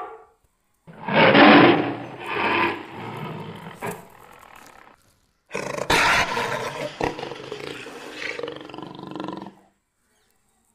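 Two tiger roars dubbed in as a sound effect. The first starts about a second in and the second just past the middle. Each is loudest at the start and then trails off into rougher, quieter growls.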